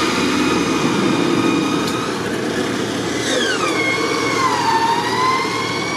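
Electric winch whining under load as it drags a vehicle, over an engine running. About three seconds in, the whine drops in pitch as the pull gets heavier, then climbs part way back.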